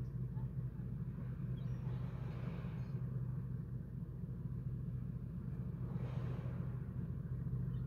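Mini cruise ship's diesel engine running in a steady low drone, with a brief swell of hiss about two seconds in and again about six seconds in.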